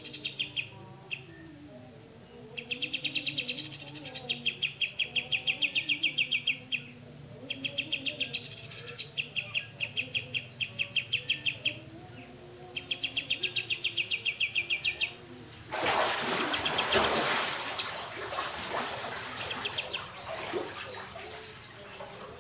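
Cucak jenggot (grey-cheeked bulbul) giving its 'besetan' song: four bouts of rapid repeated notes, about ten a second, each lasting two to four seconds. About two-thirds of the way in, a loud rustling noise lasts about five seconds and is the loudest sound. A steady thin high tone runs underneath.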